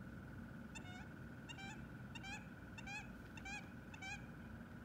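Faint honking of geese: six short honks in an even series, about two-thirds of a second apart.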